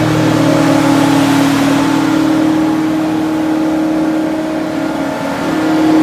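2009 Altec 12 wood chipper running steadily at high speed with its engine under way. The engine dips briefly in pitch and level about five seconds in, then picks back up.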